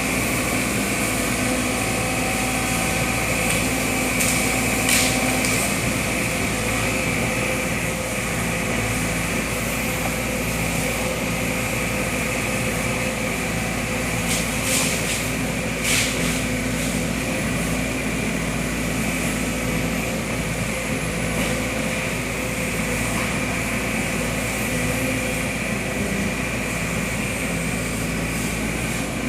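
Sumitomo SH210 hydraulic excavator's diesel engine running steadily, with a few sharp knocks about five seconds in and twice more around halfway.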